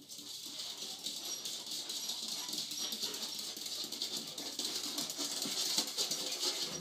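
A small spaniel's claws scratching at a wooden door and pattering on a wooden floor as it jumps to be let out: a steady scratchy rustle full of small ticks, with a few brief high squeaks.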